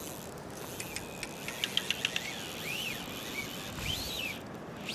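A fly reel's click-and-pawl drag ticks in a quick run of sharp clicks with a fish on the line. A few short whistles, each rising and then falling, follow over a low steady hiss.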